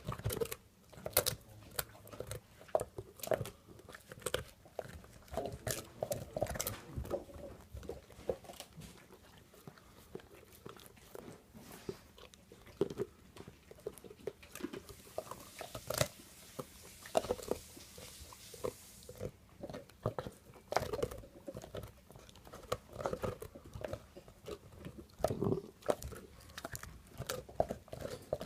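English mastiff chewing and crunching a bone, with irregular sharp cracks and gnawing crunches as his jaws work on it.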